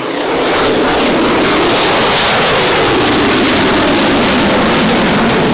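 F/A-18F Super Hornet's twin jet engines roaring loudly as the jet passes, swelling about half a second in and then holding steady.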